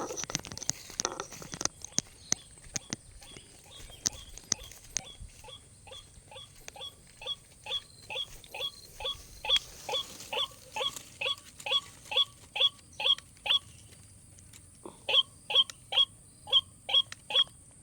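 A bird giving short, repeated calls about twice a second. The calls start faintly a few seconds in, stop briefly, then come back louder. Scattered light clicks and rustling come first.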